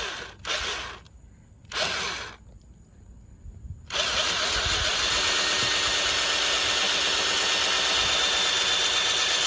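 Corded Black & Decker electric drill given three short trigger bursts, then from about four seconds in running steadily at full speed with a high whine, drilling into a door-check rivet.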